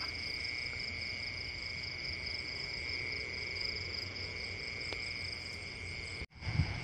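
Crickets trilling steadily in a continuous chorus at two steady pitches, one high and one higher, over a faint low rumble. The sound cuts out abruptly for a moment near the end.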